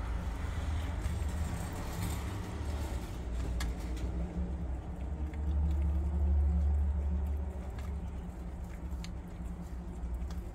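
Prairie dog biting and chewing an unripe green jujube, with a few sharp crunchy clicks every second or two. Under it runs a steady low rumble that swells midway and is the loudest sound.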